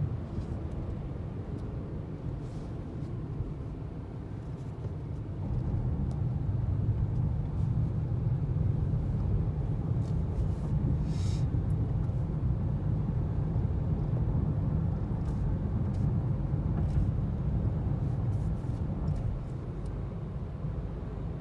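Steady low rumble of a moving car, louder from about five seconds in until near the end, with one short hiss about eleven seconds in.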